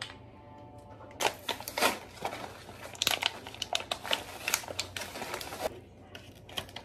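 Plastic candle packaging crinkling and rustling as it is handled and torn open, a dense run of crackles starting about a second in and stopping a second before the end.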